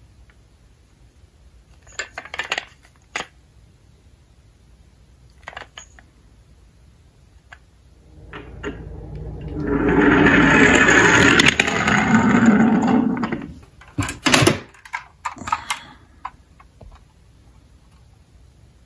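Small plastic toy ambulance rolling down a long laminated-board slope: a rolling rumble that builds up about halfway through, holds for several seconds and fades, then a few sharp knocks. Before it, light clicks of plastic toy vehicles being handled in a cardboard box.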